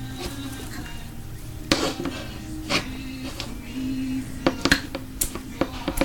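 Utensil clinking and knocking against a bowl while mixing, about eight sharp hits, most of them in the second half, over radio music.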